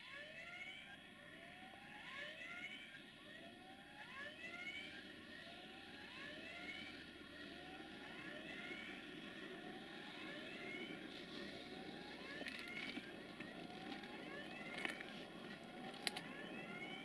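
Faint low rumble of an approaching 060-DA (LDE2100) Sulzer diesel freight locomotive, growing louder about halfway through. Over it is a regular rising chirp, roughly one a second, and a few sharp clicks near the end.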